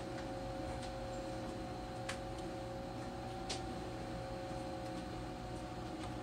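Steady hum of running machinery with a constant two-note drone, broken by two light clicks, one about two seconds in and one about three and a half seconds in.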